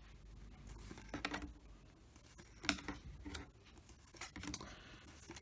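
Baseball trading cards being handled and flipped through, with a few soft, separate card slides and flicks.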